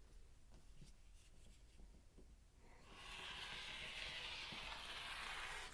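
Quilting fabric being cut with a blade: a steady scratchy rasp that starts about halfway through, lasts about three seconds and stops, after a few faint ticks.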